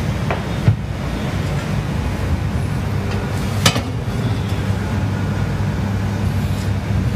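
A steady low hum, with two sharp clicks: a small one under a second in and a louder one a little past halfway, as a metal baking tray of brownies is drawn out of an oven.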